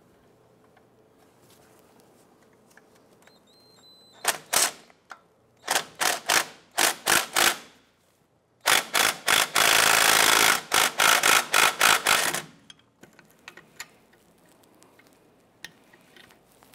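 Hand ratchet clicking as a 12mm bolt is loosened against a wrench: several short back-and-forth strokes, then a long fast run of clicking that stops about three-quarters of the way through.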